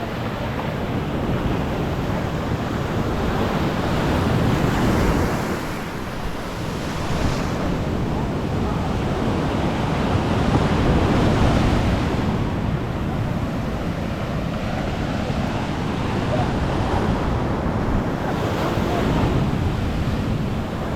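Sea surf breaking and washing up a sandy beach, the rush swelling and easing every few seconds, with wind buffeting the microphone.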